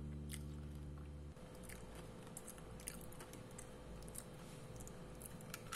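A held chord of background music cuts off about a second in. After that comes faint crunching and chewing of a crisp caramel-coated bread cube, as scattered small crackles.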